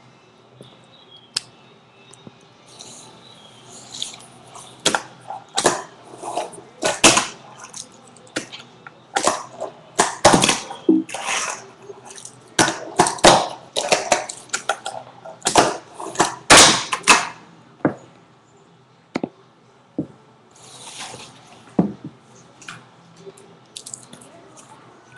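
Fingerboard clacking and scraping over cardboard ramps and a wooden tabletop: a run of sharp taps and knocks from the board's tail and wheels, with short rolling scrapes, densest in the middle and thinning to a few scattered taps near the end.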